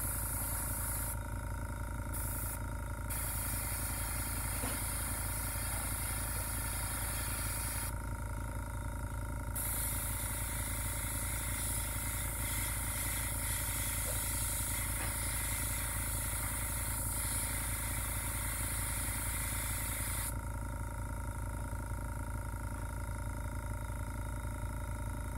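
Airbrush spraying acrylic paint onto a wooden fishing lure. A high hiss of air starts and stops with the trigger, cutting out for a couple of seconds twice and for the last few seconds. Under it runs the steady hum of the airbrush's air compressor.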